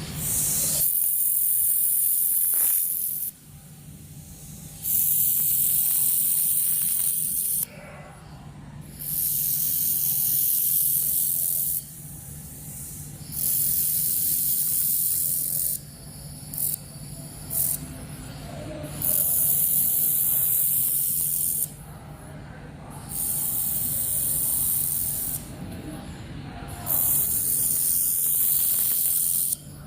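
Handheld fiber laser welder firing in repeated passes of one to four seconds each. Each pass is a loud hiss that stops sharply, with short pauses between passes and a couple of very brief taps near the middle. A steady low hum runs underneath.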